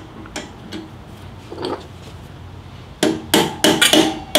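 Spoke torque wrench on a motorcycle spoke nipple: a few faint handling clicks, then from about three seconds in a run of sharp metallic clicks, about three a second, each with a short ring, as the wrench clicks over at its set torque.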